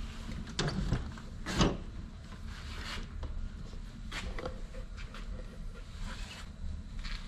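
Old truck cab door being opened by its chrome handle: a latch clunk under a second in, then a sharper, louder knock, followed by scattered rubbing and light knocks.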